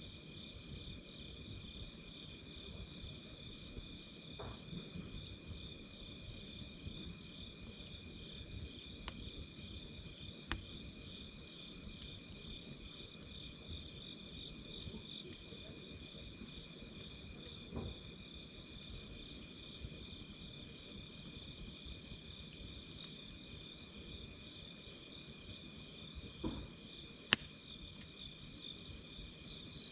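Insects chirping in a steady, rapidly pulsing trill over the low crackle and rumble of a wood campfire, with scattered sharp pops from the burning wood, the loudest near the end.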